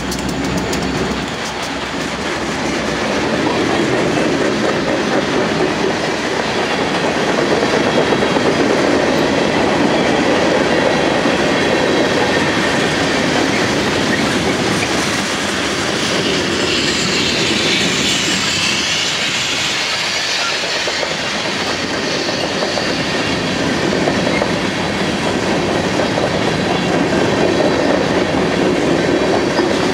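Freight train rolling past at close range. A diesel locomotive's engine rumble dies away in the first second or so, then the wheels of the freight cars run steadily along the track. Past the middle there is a stretch of higher-pitched hissing lasting a few seconds.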